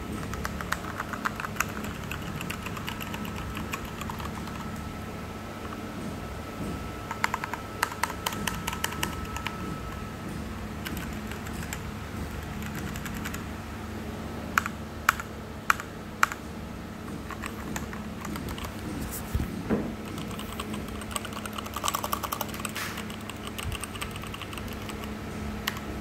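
Typing on an Azio MK Mac wired backlit mechanical keyboard: bursts of key clicks with pauses between them, and a few single hard keystrokes about halfway through. A steady low hum sits underneath.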